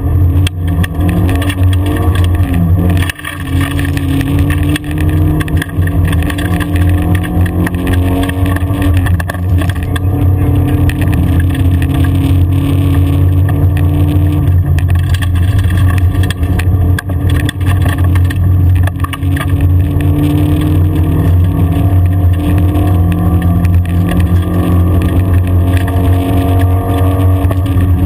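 Rally car engine running steadily under load, heard from inside the cabin, with tyre noise from the gravel track. The engine dips briefly about three seconds in, as in a lift-off or gear change, and its pitch climbs slowly near the end as the car accelerates.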